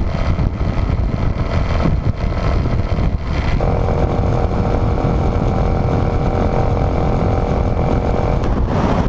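Honda XRE300's single-cylinder engine running at a steady highway cruise, under heavy wind rush on the microphone. A steady engine hum stands out more clearly from about a third of the way in until near the end.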